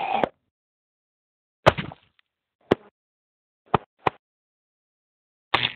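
Five short, sudden cartoon sound effects separated by silence, like quick hits or plops, after a louder sound cuts off at the very start.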